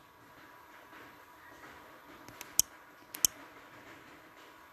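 A few light taps on a smartphone held close to the microphone, two of them sharper, about two and a half and three and a quarter seconds in, over faint room hiss with a thin steady tone.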